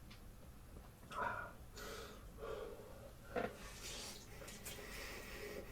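Close-up mouth sounds of a person eating spicy noodles: irregular chewing and slurping with short breaths and sniffs through the nose.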